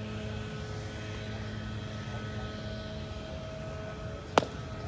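A steady background drone, then about four seconds in a single sharp crack as the pitched baseball strikes at home plate.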